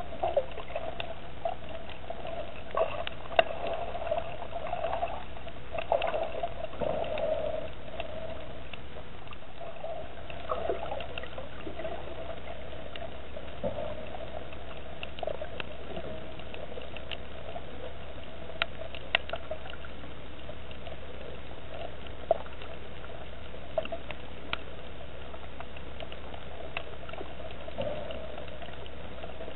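Muffled underwater water noise picked up by a submerged camera: a steady wash with a low hum and scattered sharp clicks.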